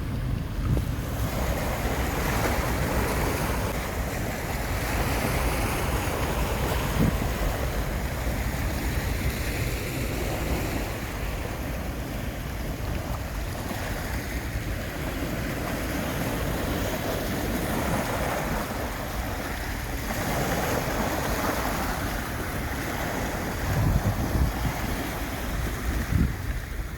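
Sea waves washing in and out, the hiss swelling and easing every few seconds, with wind rumbling on the microphone.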